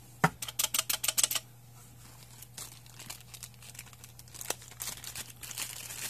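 A quick run of light plastic clicks and taps, about a dozen in a second or so, as yellow plastic arcade pushbuttons are pressed and settled into a black acrylic panel, then a single click. Near the end, plastic-bag crinkling as a bagged button is handled.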